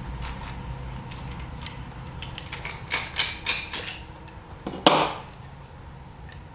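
A waterproof plastic match case being handled and opened: a quick run of small clicks and knocks, then one sharper snap just before five seconds in.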